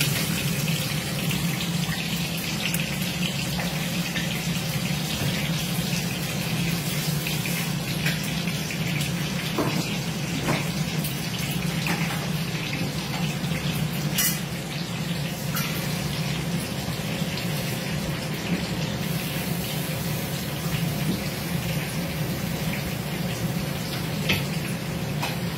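Hot oil sizzling steadily in a kadai as stuffed brinjals are put in one at a time, with a few light clicks and a steady low hum underneath.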